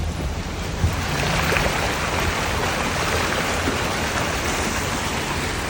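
Steady rush of water, swelling about a second in, over a faint low hum.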